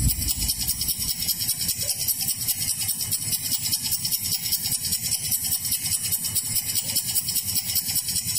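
A steady mechanical rattle with a rapid, even pulse, like an idling engine, played back as a sound effect over the stage loudspeakers for a mime.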